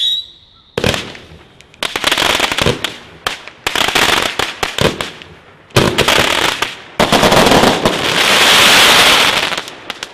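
Consumer firework barrage firing: a string of sharp reports at uneven intervals, each trailing off into crackling, then a longer, dense crackling hiss near the end.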